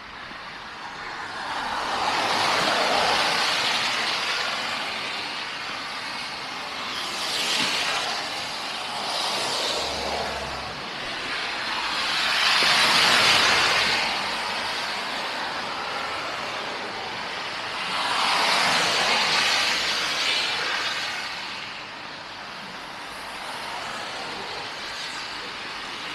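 Street traffic: vehicles passing one after another, each a rush of tyre and road noise that swells and fades over a few seconds, about four times.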